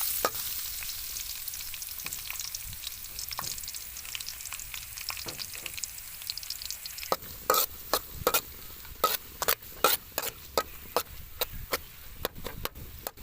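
Garlic and chili sizzling in hot oil in a pan, with a steady frying hiss. From about halfway through, a utensil stirring them clacks repeatedly against the pan.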